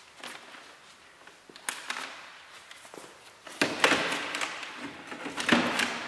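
Clear plastic door vapour-barrier sheet crinkling and rustling as it is handled and peeled off the inner door panel. A couple of sharp clicks come about two seconds in, then a louder stretch of crackling from about three and a half seconds in.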